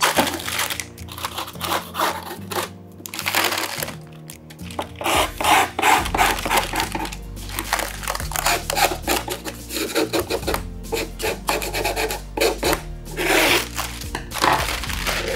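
Background music with a steady bass line under the rustle and scrape of brown baking paper as a scissors blade is drawn along it, creasing it over the edges of an upturned loaf tin.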